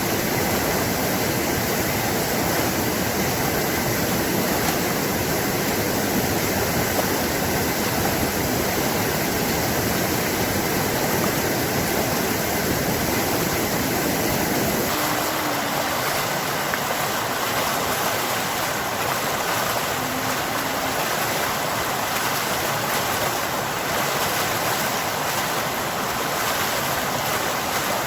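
Rushing water of a stream, a steady full flow. About halfway through it changes abruptly to a brighter, hissier water sound with less low rumble.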